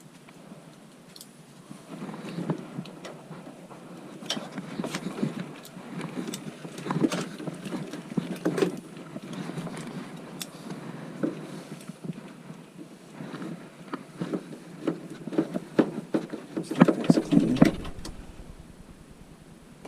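A cleaning rod being pushed and worked through a furnace exhaust pipe, scraping and knocking irregularly, with the loudest clatter near the end. The pipe is being cleared of debris that is blocking the exhaust and tripping the furnace's pressure switch.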